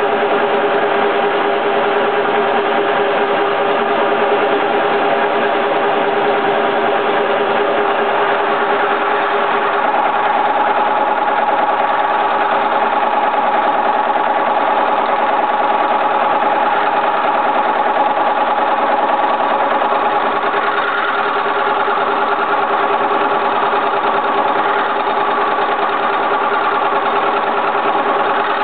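Milling machine running steadily, its spindle turning a flat boring head with a homemade cutter that bores out a hole in a steel plate. The steady hum changes tone about ten seconds in.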